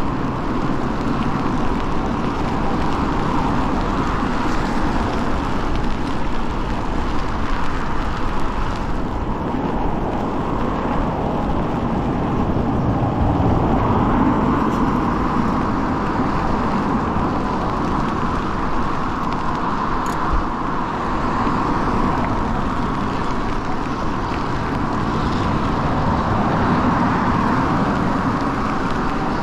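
Steady wet-road noise heard from a moving e-bike in the rain: tyres hissing over wet pavement and car traffic passing on the wet road.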